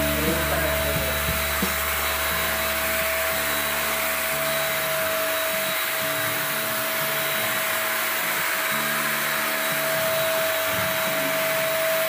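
Handheld electric paint spray gun running steadily as it sprays wood finish: a continuous fan-motor hiss with a steady high whine.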